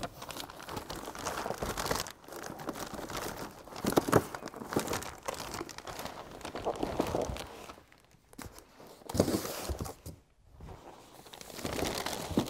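Plastic wrap and cardboard packaging rustling and crinkling in irregular spells as parts are handled and pulled from a shipping carton, with a few louder bursts of handling.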